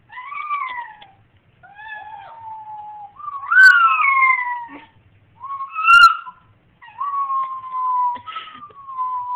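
Chinese Crested Powderpuff dog howling and screaming, about six long pitched cries in a row, several sliding downward in pitch.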